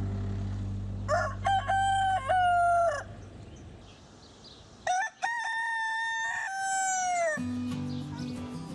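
Rooster crowing twice, each crow a long, pitched call of about two seconds, the second starting about two seconds after the first ends.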